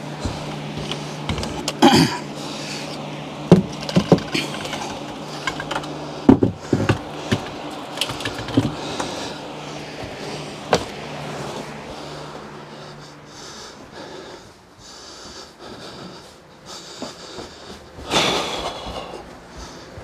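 Handling noises of thermostat wire being pulled off its spool: scattered clicks, knocks and rustles over a steady low hum that stops about two-thirds of the way through, with a louder rustling burst near the end.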